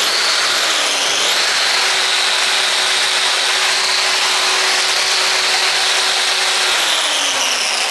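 Electronically speed-controlled angle grinder with a wire wheel brush, running free at a steady high speed. Near the end its pitch drops as the speed is turned down.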